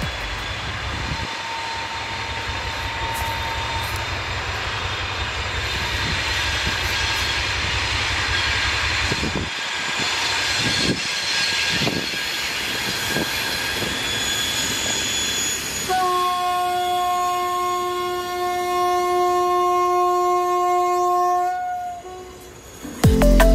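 A TEM2 diesel shunting locomotive's six-cylinder diesel engine running as it approaches, with a few knocks from the wheels on the track. About 16 seconds in it sounds its horn in one long steady blast of about six seconds.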